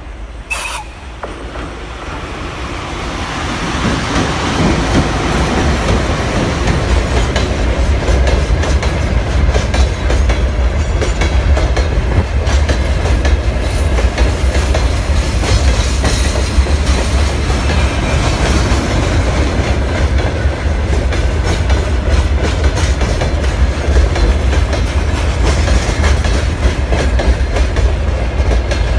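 Freight train hauled by a VL10u electric locomotive passing close by. It grows louder over the first few seconds, then settles into a steady rumble with the wagons' wheels clicking over the rail joints.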